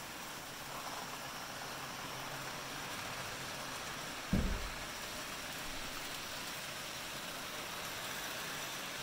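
Model trains running on the layout track: a steady hissing whir of motors and wheels. One low thump about four seconds in.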